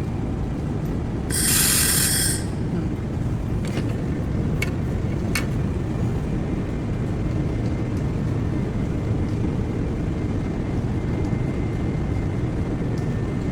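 Handheld laser spot welder firing once on galvanized steel sheet about a second and a half in: a sharp, high, hissing sizzle lasting about a second. It sits over a steady low machine hum, with a few faint clicks a few seconds later.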